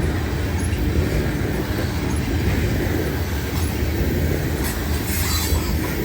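Loaded coal train's hopper cars rolling past at close range, a steady heavy rumble of wheels on rail. Brief high-pitched wheel noise comes in near the end.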